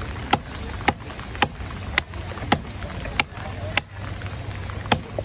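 A knife chopping through a raw fish loin into a chopping block: eight sharp, evenly spaced chops, about two a second, with a short pause near the end. A steady low hum runs underneath.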